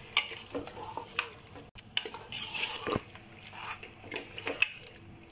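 Spatula scraping and knocking against the aluminium pressure cooker as meat in a tomato and spice masala is stirred and fried, in scattered short scrapes and taps.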